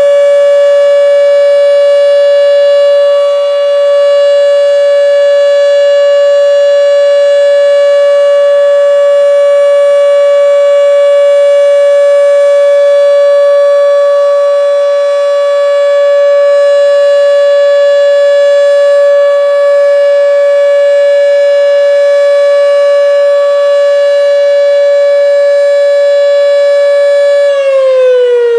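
Federal Signal Model 5 electromechanical outdoor warning siren sounding a full alert: one loud, steady tone that holds its pitch. About a second before the end the pitch starts to fall as the siren winds down.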